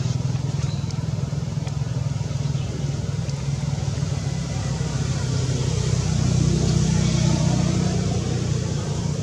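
A motor running steadily with a low hum, swelling slightly about six seconds in and easing again near the end.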